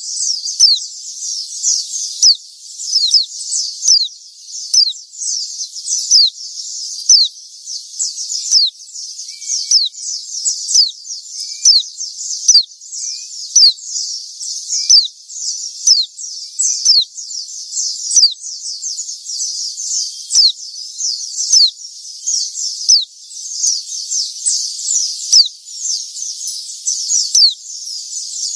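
White-eye (pleci) singing energetically: rapid high, thin notes that fall steeply in pitch, coming in bursts about once a second without a break.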